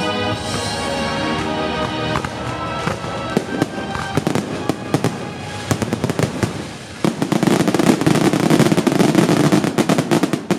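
Music at first, fading out as fireworks take over. Scattered sharp bangs come from about three seconds in, and a dense, continuous crackle of bursting shells, the loudest part, starts about seven seconds in.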